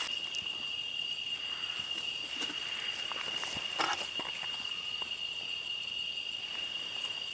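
Steady high-pitched drone of insects in the forest, one even tone that never lets up. A few short knocks and rustles of something being handled sound over it, about two and a half and four seconds in.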